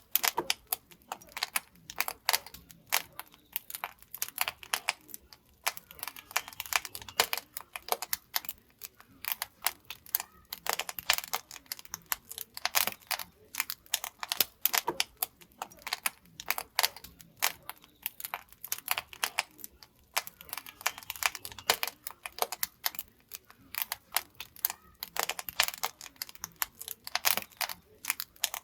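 Wood fire crackling in the firebox of a traditional Korean wood-fired pottery kiln, with a dense, irregular run of sharp snaps and pops.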